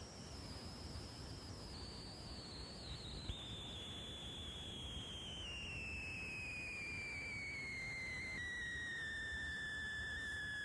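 A thin, high whistling tone with fainter overtones that slides slowly and steadily down in pitch, ending much lower than it began, over a faint background hiss.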